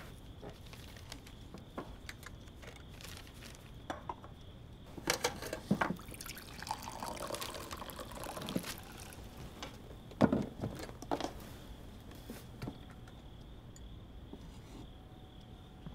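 Quiet household sounds: a few knocks and clatters of things being handled, the loudest about ten seconds in, and a stretch of a few seconds in the middle that sounds like liquid being poured into a cup.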